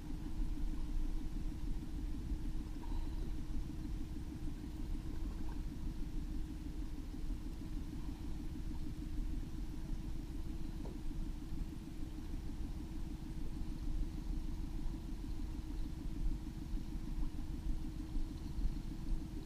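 Small boat's outboard motor running steadily at trolling speed: an even, low rumble with a steady hum over it.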